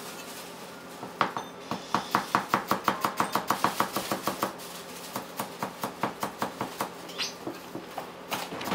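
Chinese cleaver chopping through a bundle of long white vegetable strips on a thick round chopping block. A fast, even run of about seven strokes a second starts about a second in, then slows to spaced, uneven chops about halfway through.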